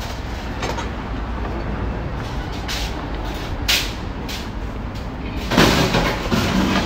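City street traffic: a steady low rumble of passing vehicles, a brief sharp hiss a little past halfway, and a louder surge of vehicle noise near the end.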